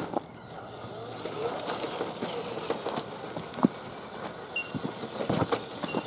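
RC scale crawler truck driving over a dry dirt trail: its tyres crunch and scrabble on dirt and grit, with scattered small knocks and clicks. The noise grows louder about a second in.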